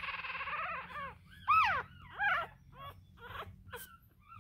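A one-week-old Russian Toy puppy squealing: a long wavering cry that ends about a second in, then a few short rising-and-falling squeaks that grow fainter.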